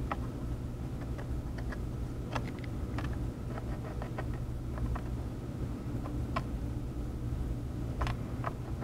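Steady low hum of soldering bench equipment, with faint, scattered light ticks and taps from the soldering tools working on the port's legs.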